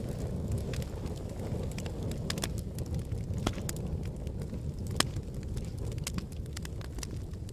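Wood fire burning in a fireplace: a steady low rumble of flames with scattered sharp crackles and pops, two louder pops about three and a half and five seconds in.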